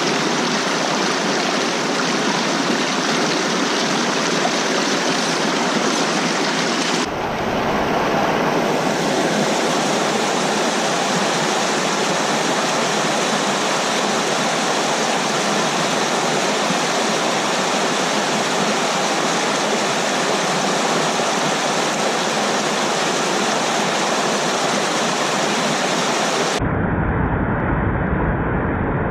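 Rushing water of a small mountain waterfall, a loud steady hiss. The sound cuts abruptly about seven seconds in, and again near the end, where it turns duller and deeper.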